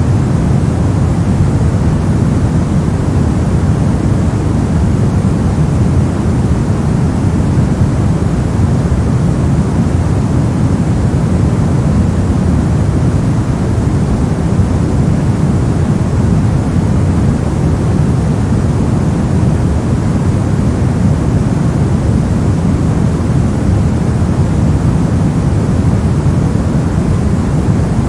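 Steady, unchanging synthetic white noise, loud and weighted toward the low end so it comes across as a deep, even rush rather than a bright hiss.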